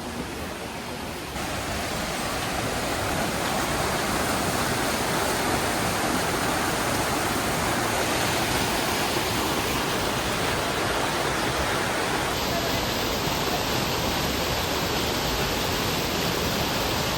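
Waterfall: a steady, loud rush of falling water that gets louder about a second and a half in.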